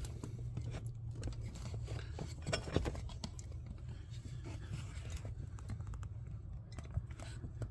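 Small clicks, snips and scrapes of hands working speaker wires and butt connectors, over a low steady hum.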